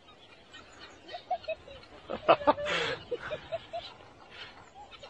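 A flock of birds giving a string of short calls, with a louder burst of sound a little past two seconds in.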